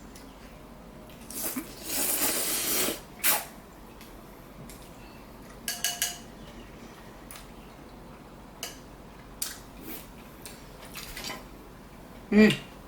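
Slurping ramen noodles, with one long slurp a couple of seconds in, and scattered light clicks of utensils against the bowl.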